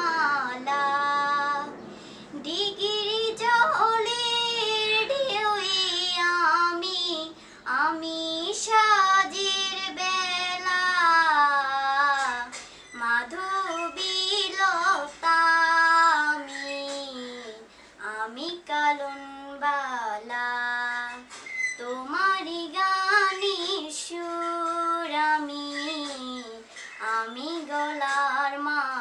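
A young woman singing a Bengali song solo and unaccompanied, one voice with no instruments, moving between gliding phrases and long held notes with short breaks for breath.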